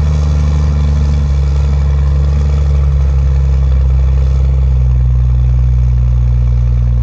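Loud, steady running of a 1995 Dodge Ram 3500's 12-valve Cummins 5.9-litre inline-six diesel through a 5-inch exhaust, holding a steady low note with slight pitch shifts.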